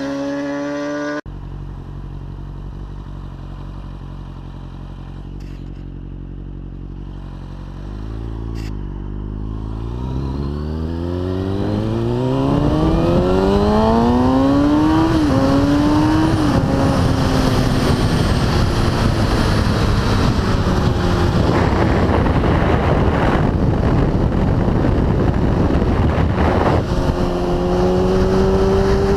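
Sport motorcycle engine heard from the rider's helmet camera, after a brief bit of music in the first second: it runs steadily at low revs, then revs up through the gears with a rising pitch and a quick upshift about 15 seconds in. Wind noise over the microphone grows loud as speed builds and then holds steady while the bike cruises.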